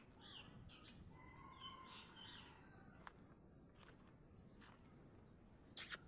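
Faint bird chirps and short gliding calls, with a wavering call about a second in, then one short, loud harsh burst near the end.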